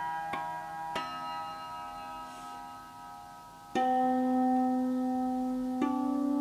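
Hand-built wooden monochord with an 80 cm scale, its strings plucked one at a time. Each note rings on long and overlaps the next, with a louder, lower note about four seconds in and another pitch joining near the end.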